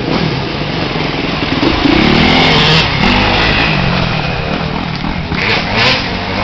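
Enduro dirt bike ridden close past on a woodland trail, its engine revving up and down as the rider works the throttle, loudest about two seconds in.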